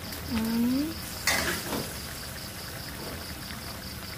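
Wet boiled instant noodles dropped into a wok of hot oil: a sudden splash about a second in that turns into a brief sizzle and fades. Just before it, a short rising cry.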